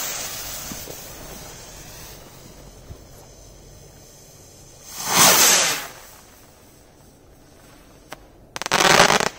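Stick rocket's fuse sparking and the rocket launching with a rush that fades over a couple of seconds. Two loud bursts follow, one about five seconds in and one near the end, from the rocket's flight and its burst in the sky.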